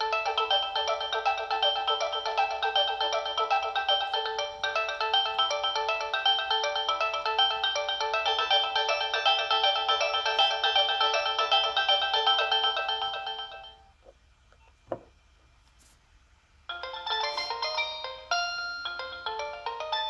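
Nokia 6070 playing polyphonic MIDI ringtones through its small built-in speaker: one busy melody fades out about two-thirds of the way in, there is a short near-silent gap with a single click, and a different ringtone tune starts near the end.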